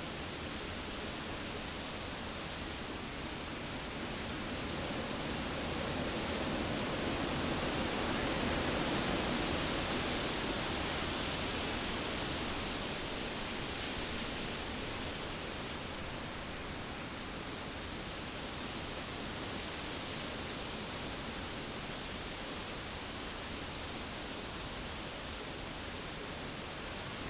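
Cyclone winds blowing as a steady rushing noise, swelling into a stronger gust from about five to thirteen seconds in before easing back.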